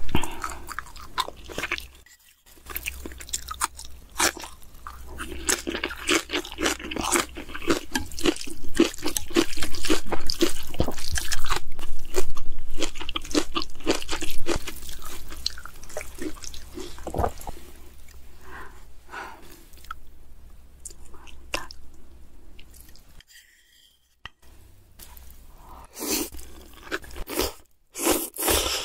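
Eating black-bean sauce noodles: chewing and slurping with many small, irregular wet mouth clicks, busiest in the middle and broken by two short pauses.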